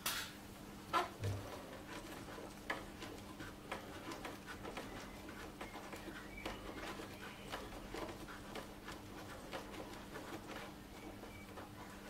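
Faint hand-work sounds: light plastic clicks and scrapes as a retaining ring is threaded over the wiring and screwed onto the back of a motorcycle 12 V power socket, a stiff thread. A sharper click comes about a second in.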